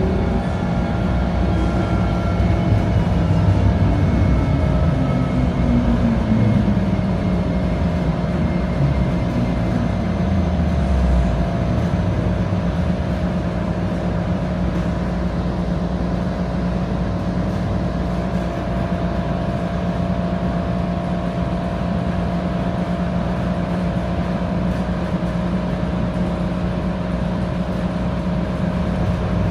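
Bombardier Flexity light-rail car heard from inside the passenger cabin, its drive whining down in pitch as it brakes to a stop over the first ten seconds or so. It then stands with a steady hum from its onboard equipment.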